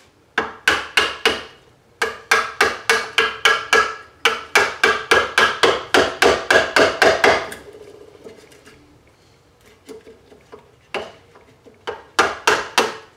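A small hammer tapping a wood chisel into a wooden model boat hull, chipping the wood out. The strikes come quickly, about four a second, in three runs, with a quieter pause of a few seconds before a last short run near the end.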